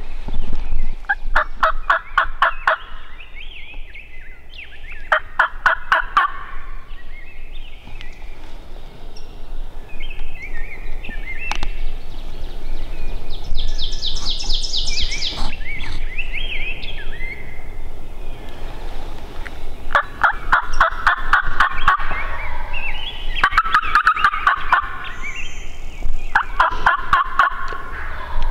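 A wild turkey gobbler gobbling about five times: twice near the start, then three gobbles in quick succession in the last third. Each gobble is a rapid rattling burst.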